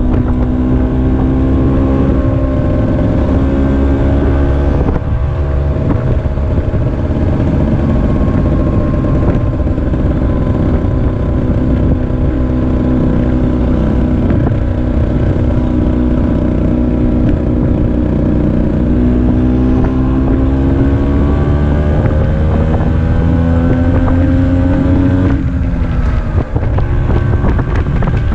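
Vespa PX80's two-stroke single-cylinder engine, fitted with a DR 136 cylinder kit, running under way with wind rushing over the microphone. The engine pitch dips briefly about five seconds in, climbs steadily through the last third, then drops off sharply shortly before the end.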